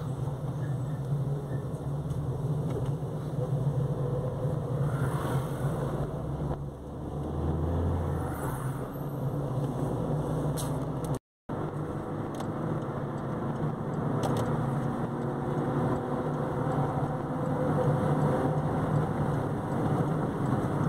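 Steady engine and tyre drone of a car cruising on a highway, heard from inside the car, with the sound cutting out completely for a moment about eleven seconds in.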